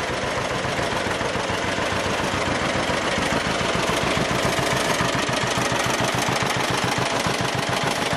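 1949 John Deere BW's two-cylinder engine running steadily, a fast even beat of firing pulses, the engine running well.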